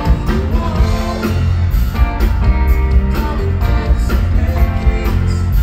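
Rock band playing live: guitar over bass and drums, with cymbal strokes keeping a steady beat.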